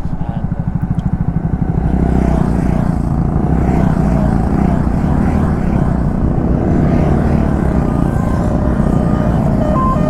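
Motorcycle running at highway speed: a steady engine rumble under heavy wind rush on the bike-mounted microphone.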